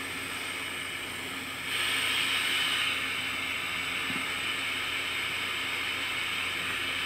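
Dremel butane soldering iron fitted with a hot-knife blade tip, lit and warming up, with a steady hissing whistle of burning gas. The hiss gets louder about two seconds in and then holds steady.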